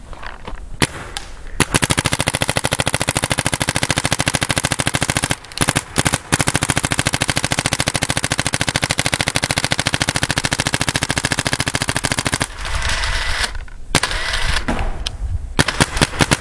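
Planet Eclipse Ego 08 paintball marker firing in long, very fast strings of shots, with a brief break about five seconds in. A few separate shots follow near the end.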